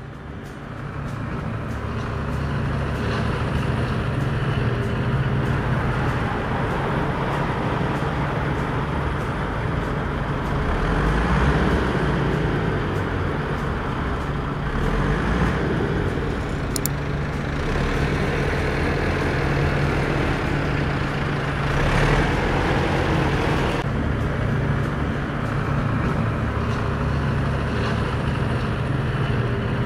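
A large tractor's engine running steadily, swelling up over the first couple of seconds, to show the repaired tractor running.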